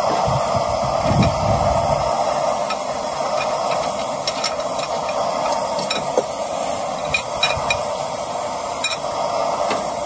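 Steady roar of a gas-fired mini forge's burner, running continuously while steel is heated for bending. A few light metal clinks are heard in the second half as the hot steel track is handled in the bending jig.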